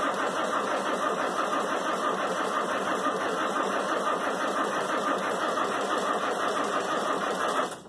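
Starter motor cranking the cold diesel engine of an Allis-Chalmers 940 wheel loader in a long steady run without it catching, cutting off abruptly near the end. The long cranking is a hard cold start: the starter is being worked hard enough that it is then left to cool.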